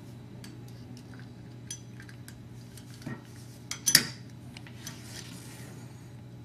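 Metal parts of a lever lockset clicking and clinking as they are handled, with one loud metallic clack about four seconds in.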